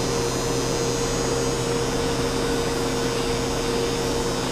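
Large metal lathe running steadily, a constant electric motor hum and whir with no change.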